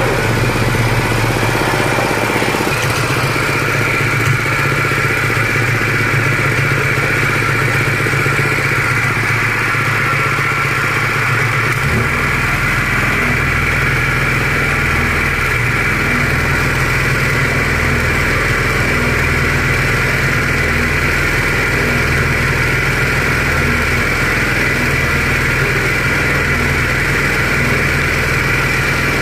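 Horizontal paddle feed mixer running, its drive and gearbox turning the agitator through a load of feed in a steady mechanical drone. About twelve seconds in, the sound deepens into an even low pulsing that carries on.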